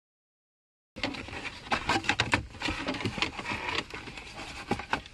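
Hard plastic car-interior trim panels being handled and pulled loose: scattered clicks, knocks and rustling of plastic and cables. This follows about a second of dead silence.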